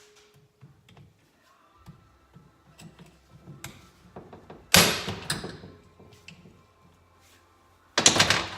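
Two hammer blows on a hand impact driver, loosening Phillips screws in a motorcycle engine case: one about halfway through and one near the end, each a sharp knock that dies away quickly. Small clicks of tool handling come between them.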